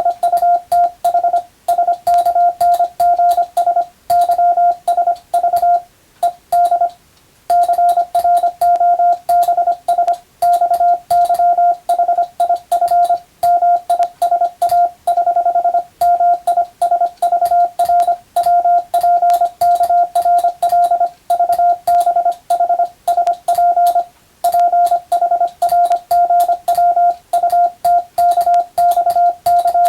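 Morse code practice: a single mid-pitched tone keyed on and off in fast dots and dashes, with a sharp click at each key stroke. The sending breaks off briefly about seven seconds in and again near 24 seconds.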